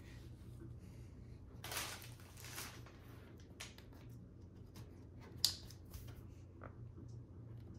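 Quiet handling of a USB-C charging cable as it is uncoiled and plugged into a laptop: a short rustle about two seconds in, a few small clicks, and one sharp click about five and a half seconds in.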